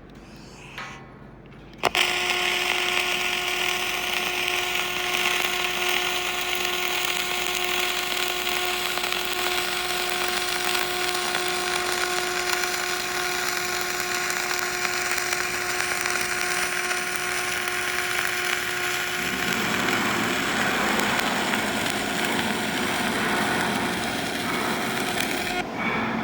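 A power tool's motor switches on suddenly about two seconds in and runs with a steady whine over a hiss; about 19 seconds in the whine gives way to a rougher, noisier sound.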